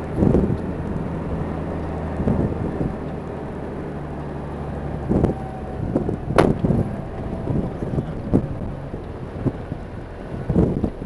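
Car driving over rough desert ground, heard from inside: a steady low engine hum and road rumble with irregular thumps and rattles as it bumps along, and one sharp click about six seconds in.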